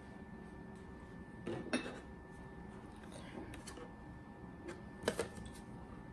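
A few separate clinks and taps of a wire whisk and kitchenware against a ceramic bowl, the loudest about a second and a half in and again about five seconds in, over a faint steady hum.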